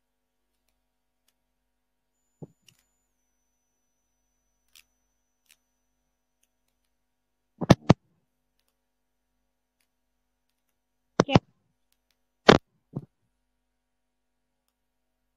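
Computer mouse clicking close to the microphone: a faint click, then sharp clicks in quick pairs about eight and eleven seconds in, and two more just after, with dead silence between.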